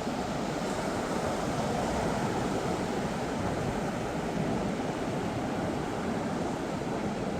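Atlantic Ocean surf: a steady rush of waves breaking and washing ashore.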